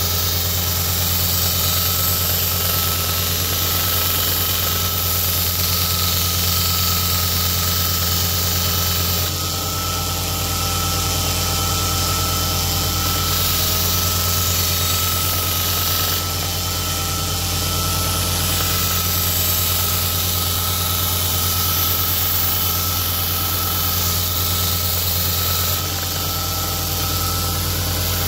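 Electric belt grinder running steadily with a motor hum, and the hiss of a D2 steel Bowie knife blade being ground on the abrasive belt to sharpen it. The grinding sound shifts slightly a few times.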